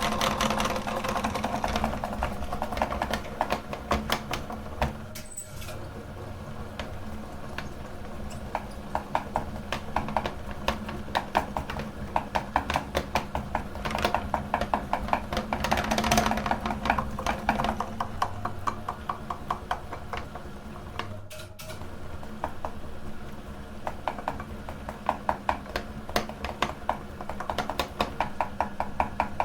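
Meat grinder running steadily with a rapid, even clicking rattle over a low motor hum as it grinds. The sound breaks off briefly twice.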